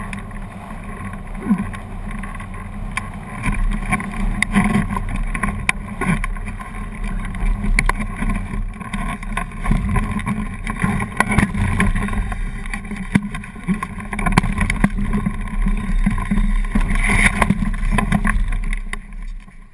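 Airflow rushing over the microphone of a hang glider's camera during its low landing approach, with irregular buffeting knocks and rattles; it dies away near the end as the glider touches down in tall grass.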